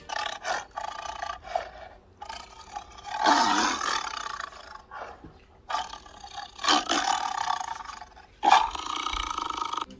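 A domestic cat growling in a string of short, rough calls, a couple of them rising in pitch: an annoyed warning while it is being brushed.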